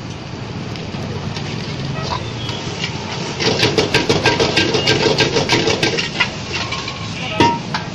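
Metal spatula or ladle clanking and scraping against a wok while the rice is stir-fried, a rapid run of strikes about five a second starting about three and a half seconds in and stopping about three seconds later, over steady background noise.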